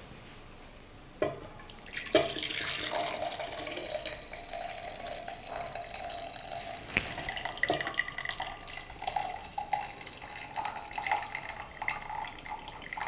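Cooking water from pressure-cooked horse gram poured from an aluminium pressure cooker into a stainless steel vessel. The pour follows two metal knocks a second or two in and carries a ringing note that rises slightly. The liquid is being drained off to use for rasam.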